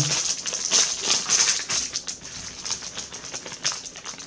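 Thin clear plastic wrapper crinkling and crackling in the hands as it is unwrapped, in quick irregular rustles that grow sparser toward the end.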